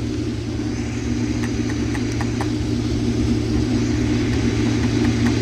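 Case combine running steadily at full throttle while harvesting corn: an even engine and threshing hum that grows slightly louder, with a few faint ticks.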